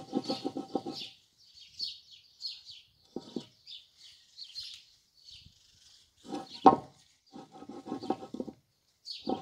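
Small birds chirping over and over, high and steady. Beneath them come several bursts of rustling and crunching as soil is pressed into a terracotta pot with gloved hands, and one sharp knock about two-thirds of the way in.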